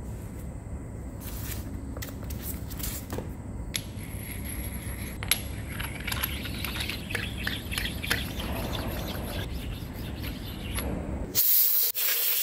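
A sharpening stone rubbed back and forth over the steel top of a lathe's compound slide, stoning it flat, with a rasping scrape over a low steady rumble. Near the end, short loud hissing bursts cut in.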